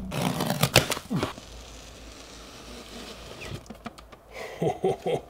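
A cardboard shipping carton handled and slid up off a plastic-wrapped box inside it: a few sharp knocks and rustles, then a steady scraping of cardboard for a couple of seconds.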